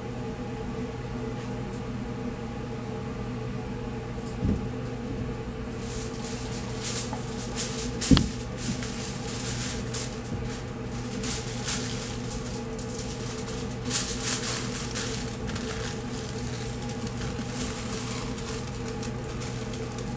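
Aluminium foil crinkling and rustling in short bursts as a brisket is wrapped in it by hand, getting busier about six seconds in, with a sharp knock around eight seconds in. Under it all runs a steady machine hum.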